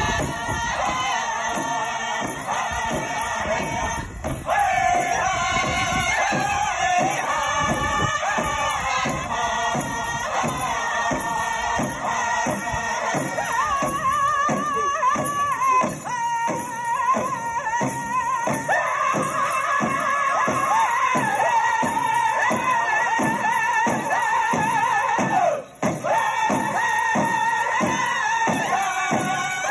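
Powwow drum struck in a steady beat, about two to three strokes a second, under high-pitched singing of a chicken dance song. There is a momentary break near the end.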